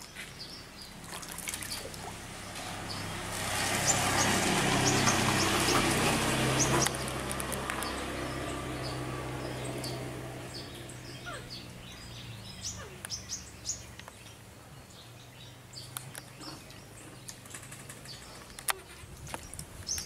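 Water splashing and sloshing in a plastic tub as a baby monkey swims and paddles in it. The splashing swells to its loudest a few seconds in and dies down past the middle, with short bird chirps throughout.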